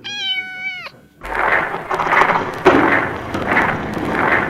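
A kitten meows once, a single high call just under a second long that dips in pitch at the end. About a second in, hip-hop music with a steady beat comes back in.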